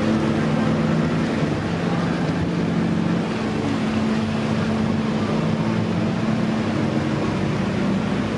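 Car ferry's diesel engines running with a steady low hum, over a broad rush of wind and water.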